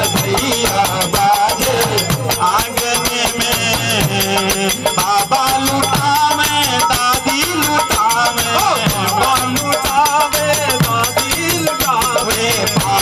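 Live Indian devotional folk music, a badhai geet: harmonium melody with a fast, steady shaken-percussion beat, and bending melodic lines that may include the singer's voice.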